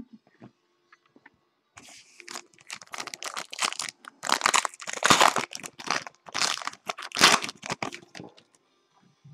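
A trading card pack wrapper being torn open and crumpled by hand: a run of crinkling and tearing that lasts several seconds.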